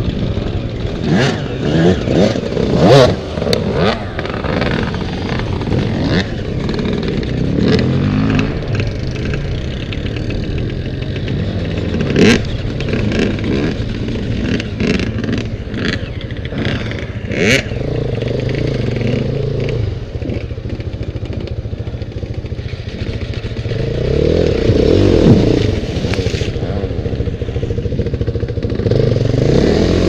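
Dirt bike engine running, revved up in bursts and dropping back again, with sharp knocks and clatter throughout.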